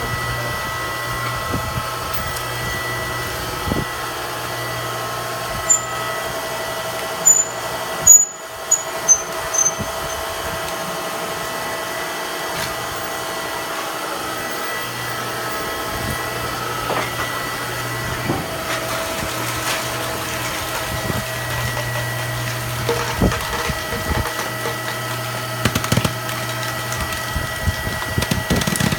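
TSI TC700 can baler's motor running with a steady hum, with a few sharp clanks and faint squeaks about six to ten seconds in.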